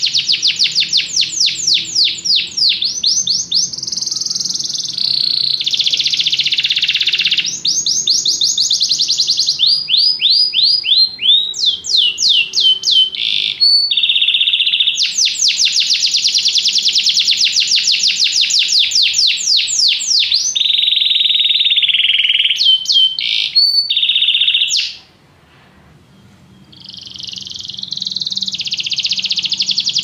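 Domestic canary singing a long, loud song of fast trills and rolling phrases, switching from one tour to the next every second or two. It breaks off for about two seconds near the end, then starts again.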